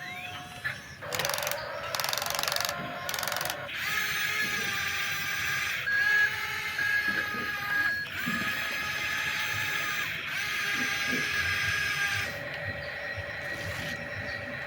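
Small geared electric motors of a remote-control toy excavator whining and grinding, starting and stopping several times as different functions are worked.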